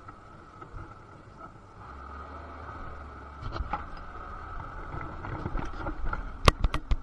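Hand work on a cable end with small tools: faint handling noise, then several sharp metallic clicks near the end, over a steady background hum.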